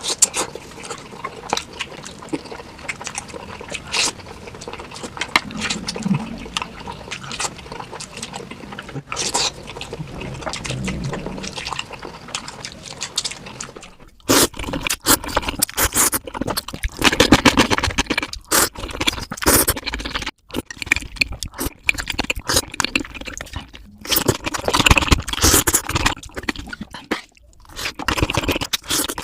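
Close-miked eating sounds sped up about four times: fast chewing, crunching and wet mouth noises. About halfway through, the sound changes to a louder, brighter clip.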